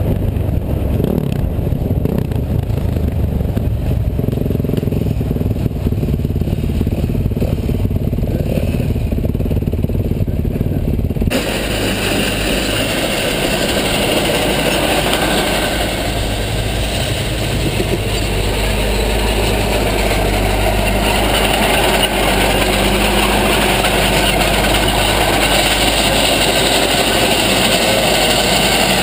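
Bulldozer diesel engine running steadily at work. About eleven seconds in the sound changes abruptly to a harsher, noisier engine sound, which then runs on steadily.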